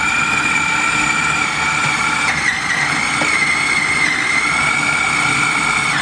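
Kenwood food processor motor running steadily with a whine, blending a very full bowl of oats, bananas and peanut butter. The pitch dips briefly about two and a half seconds in and steps up right at the end as the load changes.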